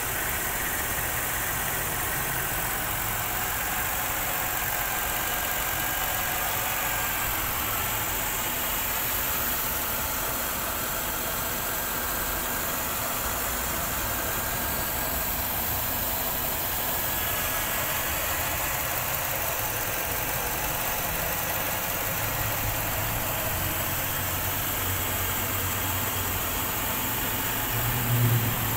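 Mercedes-Benz M273 V8 engine idling steadily, running again after six years of standing unused.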